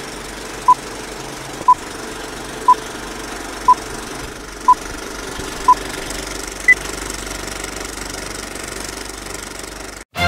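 Old-film countdown leader effect: a film projector running with a steady clatter and hiss, under a short beep once a second, six times, then one higher-pitched beep. The sound cuts off near the end.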